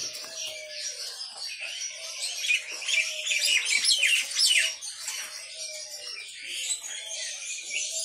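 Many caged songbirds chirping and twittering at once, busiest about two and a half to five seconds in, over a faint steady hum.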